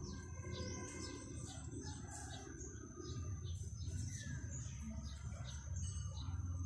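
Birds chirping repeatedly in short calls, over a low steady background rumble.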